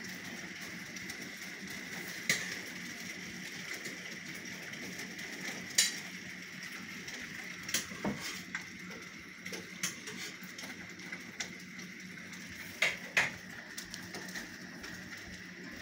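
Rain and hail falling: a steady hiss with irregular sharp clicks of hailstones striking hard surfaces.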